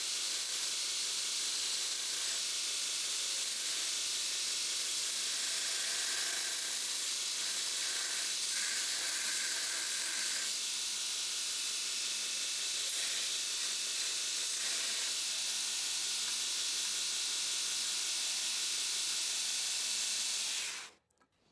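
A 2x72 belt grinder's abrasive belt grinding the edge of a Damascus steel knife blank down to its profile: a steady hiss that cuts off suddenly near the end.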